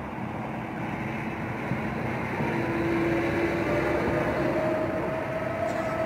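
Federal Signal 2001 outdoor warning sirens starting up in the distance: faint tones come in about two seconds in and slowly climb in pitch as the sirens wind up. They sit under a steady rushing background noise.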